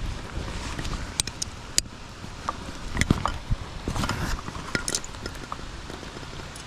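Rain pattering steadily, with scattered small clicks and taps of a metal hook-removal tool and a lure's hook against a fish lip grip as the lure is worked out of a snakehead's mouth.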